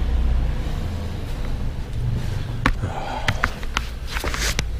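Handling noise as a small action camera is picked up and moved: a low rumble at first, then a quick run of sharp clicks and knocks from about halfway through.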